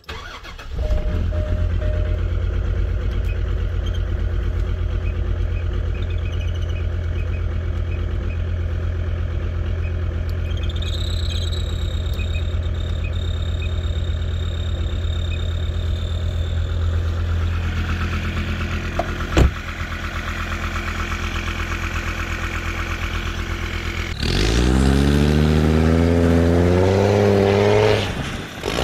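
Land Rover Discovery TD5's five-cylinder turbo diesel starting up and idling steadily, heard from inside the cab, with a sharp click about two-thirds of the way through. Near the end the engine is revving hard, its pitch rising and wavering, as the truck ploughs through deep snow.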